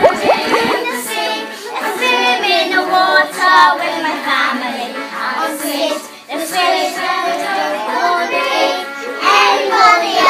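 A class of five-year-old children singing a song together.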